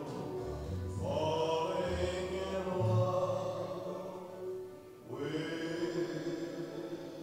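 Music: a song with a voice holding long notes, one from about a second in and another starting about five seconds in, over a low accompaniment.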